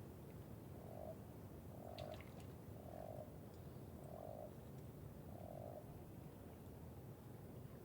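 A frog croaking five times in an even series, about one croak a second, each short and mid-pitched. A steady low background rush runs underneath.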